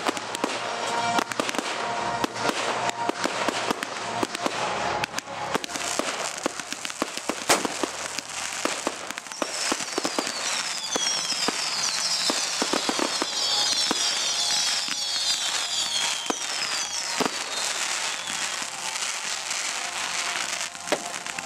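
Firework display: repeated bangs and crackling bursts, with a dense flurry of falling whistles through the middle. Music plays underneath.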